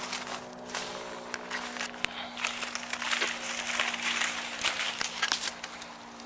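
Bare feet walking through dry, flattened reed stalks over mud, the dry stems crackling and crunching underfoot, busiest in the middle.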